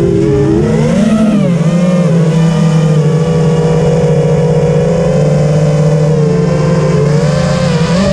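FPV racing quadcopter's brushless motors and propellers whining in flight, the pitch rising and falling with throttle, then holding fairly steady for a few seconds before climbing again near the end.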